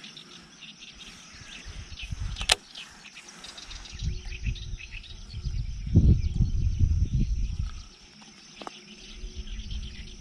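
Baitcasting rod and reel being handled, with one sharp click about two and a half seconds in and a low rumble of handling noise from about four to eight seconds in, over faint birdsong.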